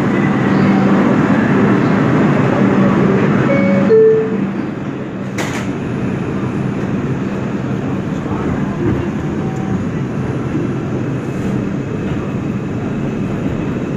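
Inside an R142 subway car on the 2 line: the steady noise and low hum of the train, with two short falling tones about four seconds in and a single sharp click a second or so later.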